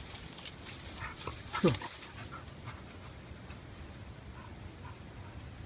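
A dog gives one short whine that falls in pitch, about a second and a half in, among a few light clicks and scuffs of movement over rock.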